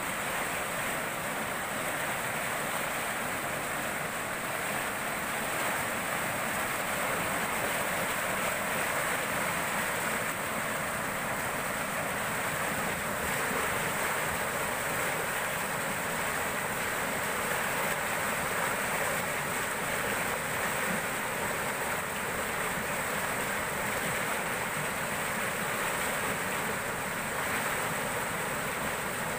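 Fast-flowing river water rushing steadily through a concrete weir, churning white around its pillars.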